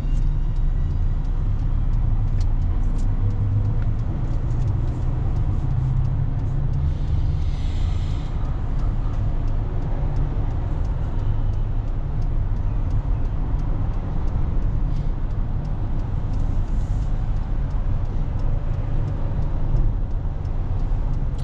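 Steady low rumble of a car's engine and surrounding traffic heard from inside the cabin, with a brief hiss about seven seconds in.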